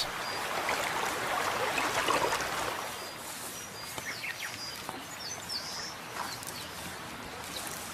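Shallow river water splashing and rushing, loudest for the first three seconds and then settling to a steady stream. Short, high bird chirps sound over it.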